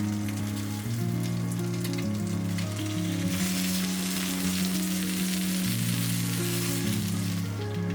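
Food frying on a grill plate, the sizzle growing stronger about three seconds in and easing off near the end, over background music with long held low notes.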